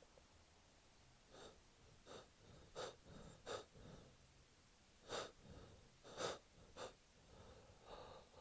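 A man with a head cold taking about eight short, sharp breaths and gasps through the nose and mouth, unevenly spaced: the build-up to a sneeze.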